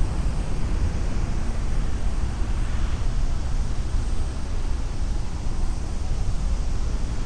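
Steady outdoor city street ambience, a continuous low rumble of traffic with an even wash of noise over it.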